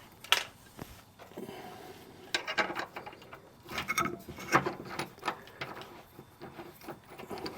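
Metal clicks and clinks of a hand wrench and mower blade parts being fitted onto a mower deck's blade spindle, in short irregular bursts with a sharp click about half a second in.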